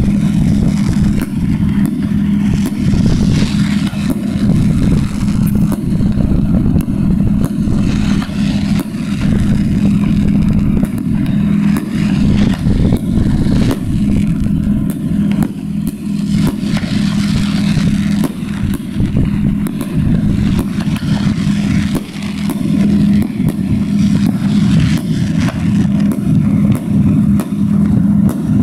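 Fireworks going off in quick succession: a constant run of sharp cracks and pops over a continuous low rumble.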